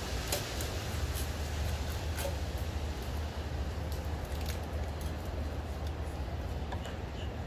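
Irregular light metallic clicks and clinks of a hand wrench working bolts on an engine, over a steady low rumble.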